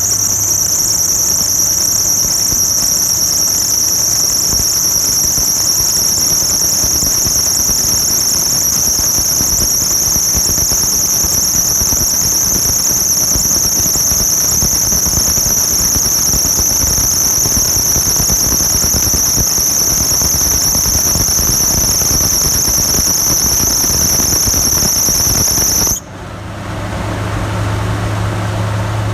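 A 1996–2002 Toyota 4Runner's engine drive belt squealing loudly and steadily at a high pitch on startup, then cutting off suddenly near the end while the engine keeps running. The owner suspects the alternator belt.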